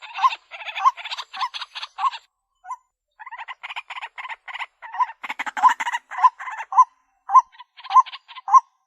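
White-breasted waterhen calling: a run of harsh, repeated croaking notes, about two a second, with a brief lull a couple of seconds in before the calling resumes.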